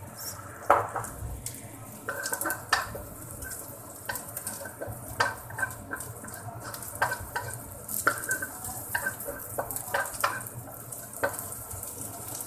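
Wooden spatula scraping and tapping around a nonstick wok in irregular strokes as dried shrimp are stir-fried, over a light sizzle of hot oil.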